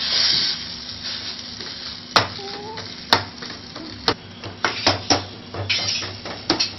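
Chopped tomatoes and onions sizzling in a stainless steel kadai while they are stirred with a perforated ladle. The ladle knocks sharply against the pan, once each about two, three and four seconds in, then in a quicker run of knocks near the end.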